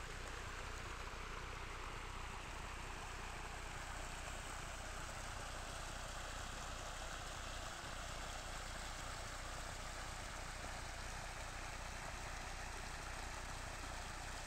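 Rainwater floodwater running across muddy ground in shallow sheets, a steady rushing noise with a low rumble beneath.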